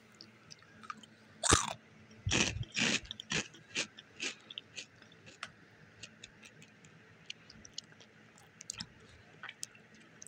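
Someone biting and chewing crunchy puffed wheat shrimp chips. There is one sharp crunch about a second and a half in, then a quick run of crunches that thin out to faint clicks after about five seconds.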